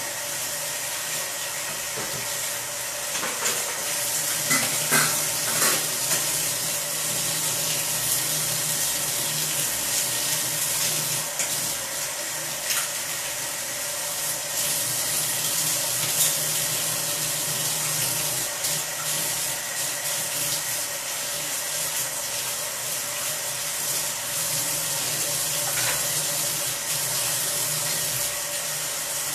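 Curry simmering in a covered pan under a glass lid: a steady bubbling hiss with a few soft pops, over a faint steady hum.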